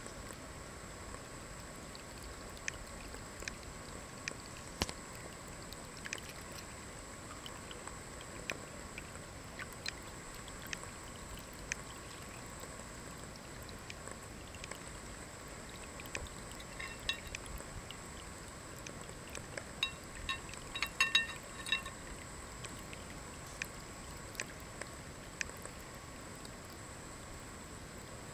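Ceramic pet drinking fountain: a thin stream of water trickling from the spout into the glazed bowl, with scattered small ticks. A few short high chirps rise above it partway through, loudest about three-quarters of the way in.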